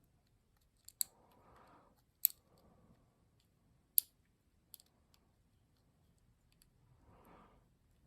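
Lock pick and tension wrench working the pins of a pin-tumbler lock as it is picked again after an overset pin: small metallic clicks and scrapes, with four sharper clicks spread through, over soft handling rustle.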